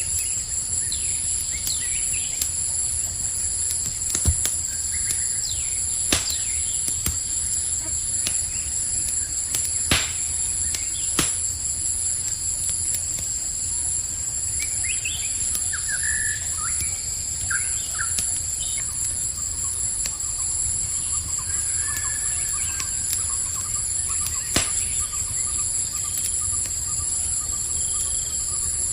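Campfire crackling, with a handful of sharp pops, over a steady high chorus of crickets. A few short bird chirps come in around the middle and again later on.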